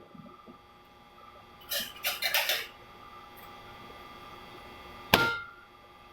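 A short cluster of light metallic clicks and clatter, then a single sharp metallic click that rings briefly.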